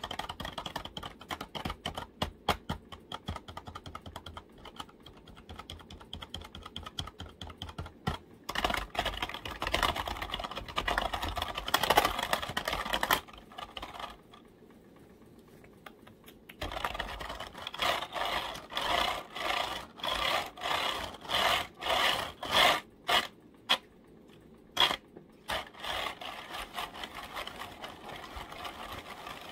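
Computer keyboard being tapped and typed on in quick runs of clicking keystrokes. The clicking stops for about three seconds near the middle, then comes back as a run of evenly spaced clacks before the fast typing resumes.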